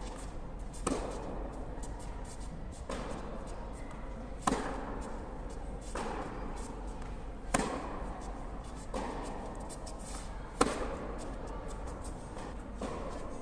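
Tennis rally: rackets striking the ball back and forth, a sharp pock about every one and a half seconds, louder hits alternating with fainter ones from the far end of the court, each echoing in a large indoor hall.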